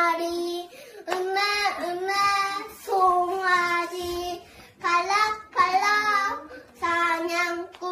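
A young boy singing unaccompanied, in short sung phrases with held notes and brief breaths between them.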